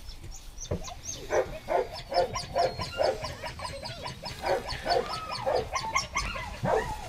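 A puppy yelping and whimpering over and over, short cries about two or three a second.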